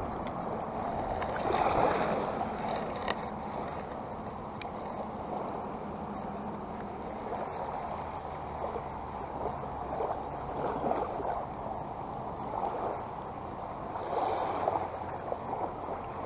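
Small waves lapping and washing at the shoreline, swelling a few times, over a faint steady low hum.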